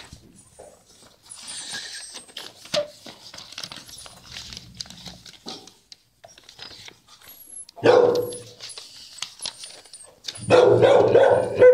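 Shelter dogs barking in kennels, with the loudest barking about eight seconds in and again near the end.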